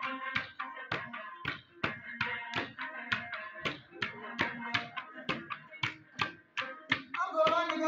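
A long-necked plucked lute playing over a sharp, even percussive beat of about three strikes a second, its strings ringing between the strikes. A loud voice comes in near the end.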